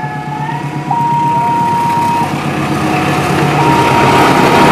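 CC206 diesel-electric locomotive running as it passes close, followed by rising wheel-on-rail noise from the coaches, getting louder toward the end. Over it, a two-tone level-crossing alarm switches steadily between a higher and a lower tone.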